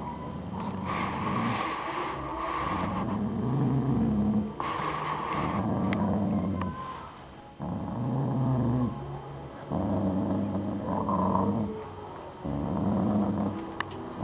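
A pet dog growling: a series of low grumbling growls, each lasting a second or two, one after another with short breaks.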